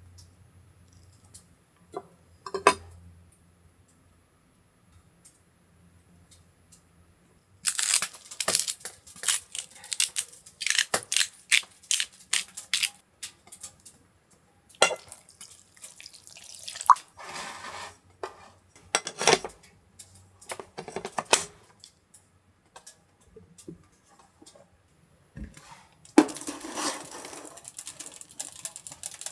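Food-preparation handling: clinks and clatters of dishes and utensils with rustling, in several bursts separated by pauses. A steadier rush of noise starts near the end.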